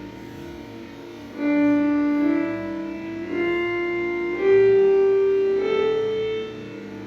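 Background music: sustained notes played on a keyboard or piano-like instrument, the melody stepping upward in pitch over a few seconds.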